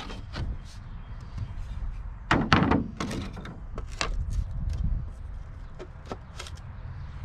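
Wooden drawer and table parts being handled: a series of knocks and clunks of wood on wood, the loudest about two and a half seconds in, over a low steady rumble.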